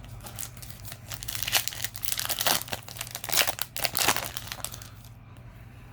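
Foil Yu-Gi-Oh! booster pack wrapper crinkling as it is handled, a dense run of quick crackles that fades away near the end.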